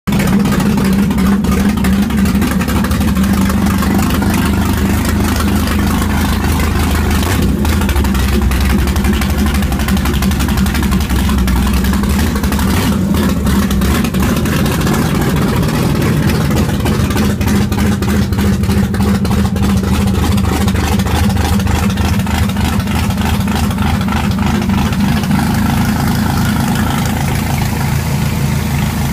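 1994 Carrera 235 Viper boat's sterndrive engine idling steadily on its trailer, run out of the water on a garden-hose water supply.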